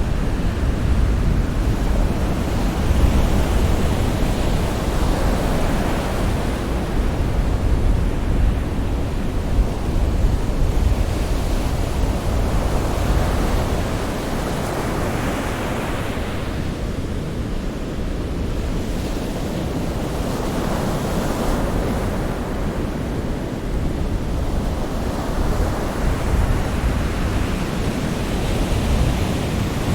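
Sea surf: a continuous rushing wash of waves with a deep low rumble, swelling and ebbing every few seconds as waves come in.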